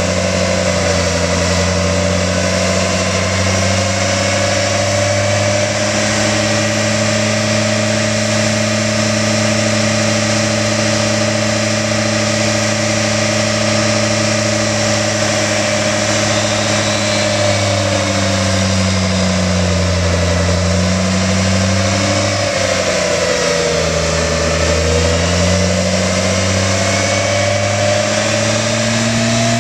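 Pickup truck engine running at a steady raised speed, its pitch sagging lower about two-thirds of the way through and then climbing back up.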